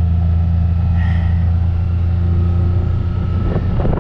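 Vehicle engine running steadily, a low, even drone.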